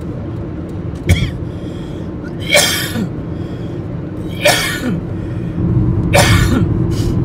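Steady road and engine rumble inside a car at freeway speed, with a person coughing three times about two seconds apart.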